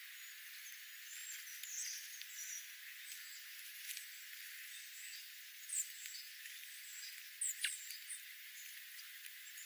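Small wild birds giving short, high chirps over a steady hiss, with a cluster of chirps about two seconds in and sharper, louder ones around six and seven and a half seconds in.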